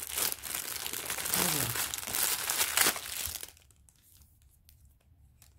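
Thin clear plastic packaging bag crinkling as hands pull a kit out of it, for about three and a half seconds, then it stops; a few faint light taps follow.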